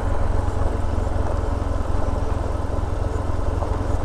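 Motorcycle engine running steadily while riding a gravel dirt road, with a heavy low rumble of wind on the rider's camera microphone.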